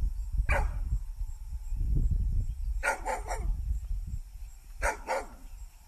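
A dog barking in short groups: one bark, then three close together, then two, about every two seconds, over a steady low rumble.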